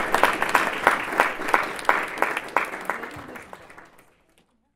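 Applause from a small group of people, the individual claps distinct, dying away about four seconds in.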